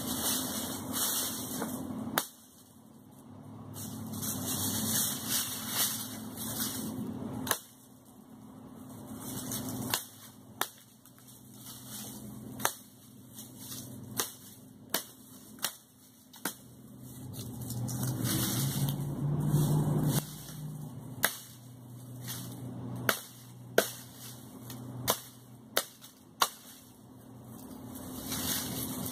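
Black Legion survival machete chopping through green leafy tree branches: about twenty sharp chops at uneven intervals, coming quicker in the second half.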